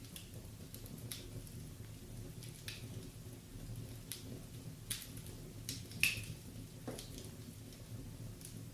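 Wood fire crackling in a fireplace: irregular sharp pops and snaps, the loudest about six seconds in, over a low steady hum.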